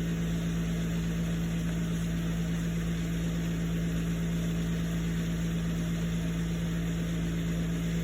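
Steady low-pitched hum over a hiss, unchanging, with no distinct clicks or knocks.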